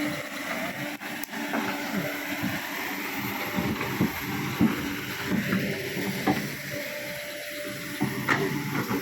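Excavator engine running steadily under a constant hiss, with a few scattered knocks.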